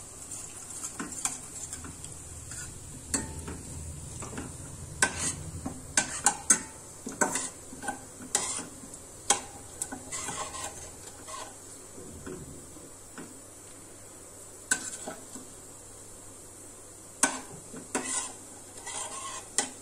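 Steel spoon stirring and scraping around a stainless-steel kadhai with irregular clinks against the metal, over a steady sizzle of ajwain (carom seeds) and hing roasting in hot mustard oil. The clinks come thickest in the first half and again near the end, with a quieter stretch in between.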